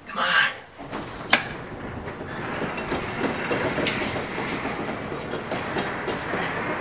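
A sharp click about a second in, then a sectional garage door rolling up on its tracks: a steady, rattling rumble with small clicks that starts about two seconds in and keeps going.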